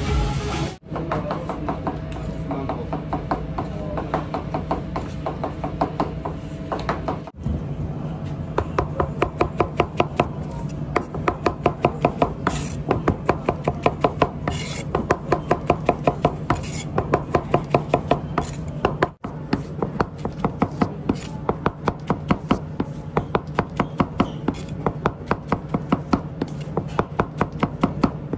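Chef's knife slicing button mushrooms on a cutting board: rapid, even strokes, several a second, each a sharp knock of the blade meeting the board. A steady low hum runs underneath.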